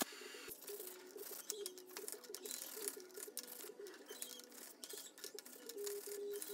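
Soft background music: a simple melody of held notes stepping up and down in a low-middle register. Under it, a faint scratchy hiss of metal being abraded on a grinder and wire wheel.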